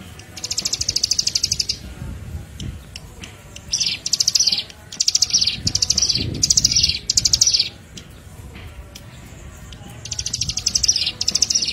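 Prinias giving rapid, buzzy trills in a string of bursts, each lasting about a second, with short gaps and a longer pause in the middle; a bird-lure recording of prinia calls.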